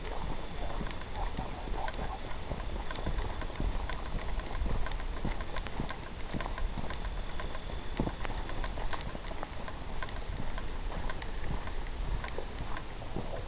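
Footsteps crunching through dry corn stalks and leaves: an irregular, unbroken run of crackles and scuffs.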